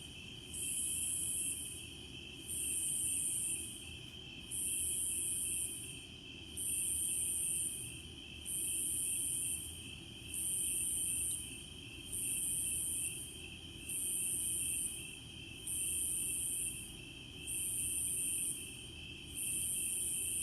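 Insects calling: a high-pitched buzz that pulses on and off roughly every two seconds, each pulse lasting about a second, over a steady lower-pitched trill.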